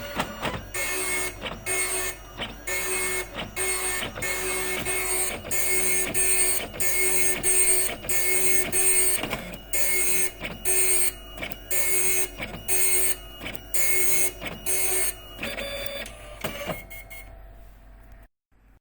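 Epson dot matrix printer printing, its print head rattling across the page in short passes about a second apart with a shrill whine. Near the end the passes stop, a different whirr of the paper feed follows, and the sound fades and cuts off.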